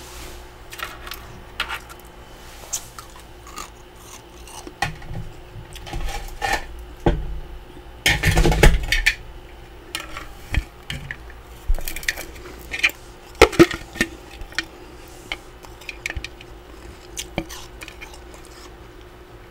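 Metal spatula scraping and scooping packed frost off a freezer's frosted wall: scattered crunchy scrapes and clinks of metal against frost and plastic. The loudest is a dense scrape about a second long, some eight seconds in.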